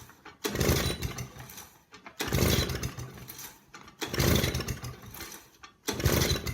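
Small lawn mower engine being cranked by its pull-start recoil cord, about four pulls roughly two seconds apart, each a second-long chugging turnover. The engine turns over with compression but does not catch and start.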